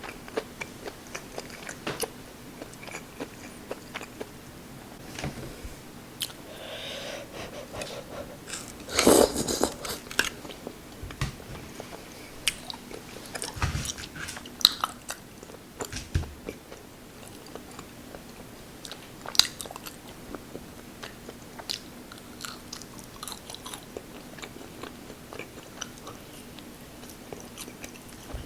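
Close-miked eating: chewing and biting with scattered small crunches and wet clicks, and a louder burst of noise about nine seconds in.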